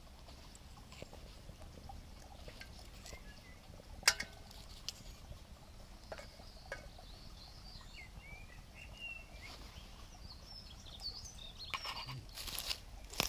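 Small twig fire in a Solo Stove Titan wood-burning stove crackling faintly, with one sharp pop about four seconds in and a few lighter snaps after it. Birds chirp in the background, and a short scratchy rustle comes near the end.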